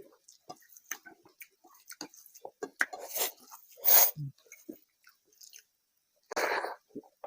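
Close-miked wet chewing and mouth sounds of a person eating curry with rice: irregular small smacks and clicks, with louder wet bursts about three to four seconds in and again near the end.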